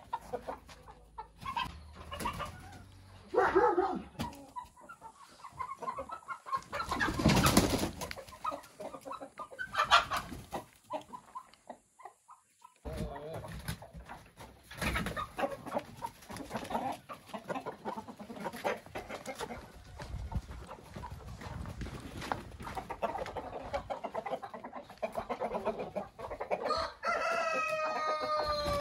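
Chickens clucking and calling on and off, with a rooster crowing near the end: one long call that falls away at its close.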